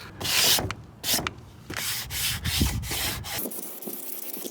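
Aerosol spray-paint can hissing in several short bursts, each a fraction of a second long.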